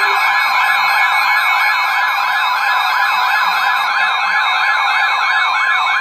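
A bank of weather-alert radios sounding their alarms at once for a severe thunderstorm warning: a loud warbling siren tone rising and falling about four times a second, over steady alert tones including one near 1 kHz, the weather-radio warning tone.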